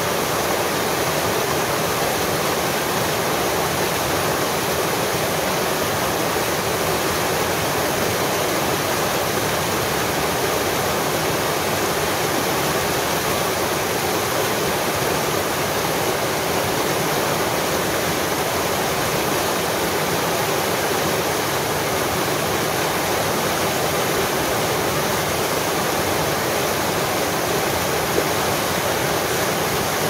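Stream water rushing over a rock ledge into white water, close up: a steady, unbroken rush.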